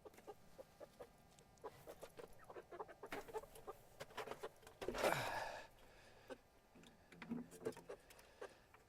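Chickens clucking softly among scattered light taps, with one louder squawk that falls in pitch about five seconds in.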